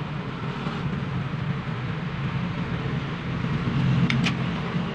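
Steady low rumble of an engine running, with two quick metal clinks about four seconds in as a car power window regulator's rail and motor bracket are handled.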